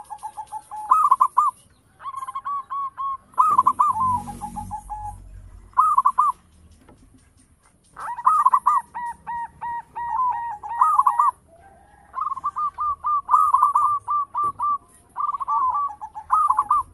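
Zebra dove (Javanese perkutut) cooing: phrases of rapid, short staccato coos repeated several times, with pauses of a second or more between them.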